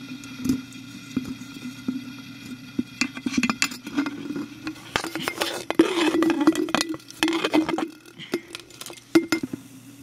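A glass container clinking, knocking and scraping on a wooden tabletop as it is moved aside. Scattered clicks begin a few seconds in, thicken into a busy run of knocks and scraping in the middle, and end with a couple of last clinks.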